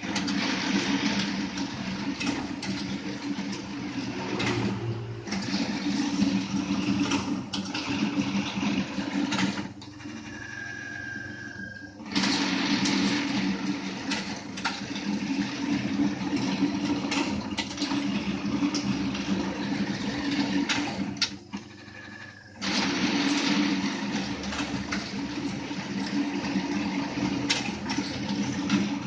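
Satay skewer machine running with a steady hum and a dense clatter of clicks. It drops away twice, for about two seconds near the middle and briefly again about three-quarters through.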